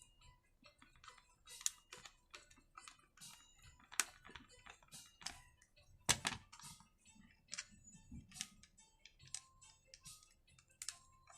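Irregular small clicks and taps of a screwdriver working screws into the plastic throttle handle housing of a petrol brush cutter, with two sharper knocks about four and six seconds in.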